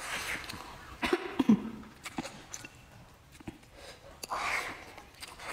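Close-up eating sounds: a person taking in mouthfuls of rice and glass noodles, with a hissing slurp or draw of breath at the start and another about four seconds in, and a few sharp clicks about a second in.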